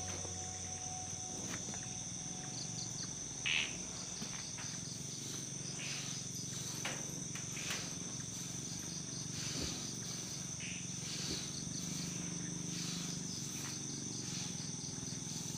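Insect chorus: a steady high trill with short pulsed chirps over it, and a brief louder noise about three and a half seconds in.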